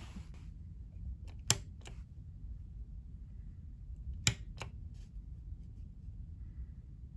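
Two sharp clicks of a wall light switch, about three seconds apart, turning the room lights off and then back on; each is followed by a fainter click.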